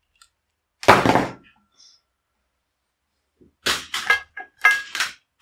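A single thump about a second in, as headphones are set down on a desk, then a quick run of short laughs near the end.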